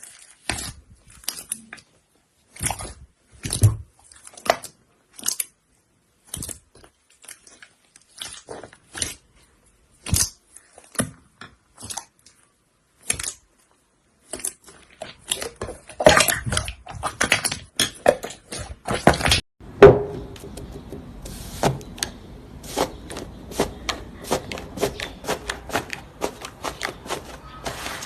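Slime being squeezed and worked by hand, giving irregular clicks and pops. They come thickest around the middle, and a faint steady hiss lies under them in the second half.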